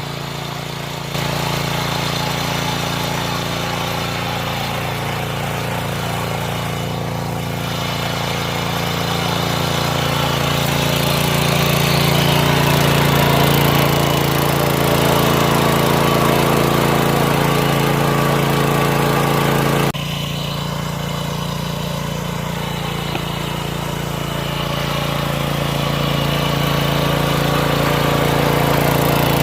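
Mini tiller's engine running steadily while it ploughs the soil, with a sudden short dip in level about two-thirds of the way through.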